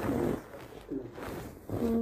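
A person's voice making short murmurs or hums, three brief sounds with the last one held a little longer, in a recorded conversation.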